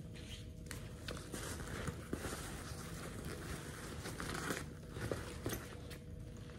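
Rustling and crinkling of a polyester backpack being handled, with a few faint ticks and short scuffs of fabric.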